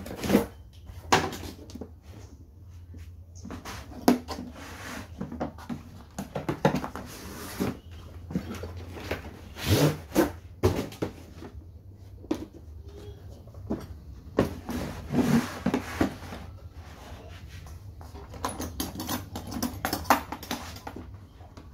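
Hard plastic power-tool carry cases being handled on cardboard: irregular knocks, scrapes and rustles, then a run of quick clicks near the end as the cases' metal latches are flipped open.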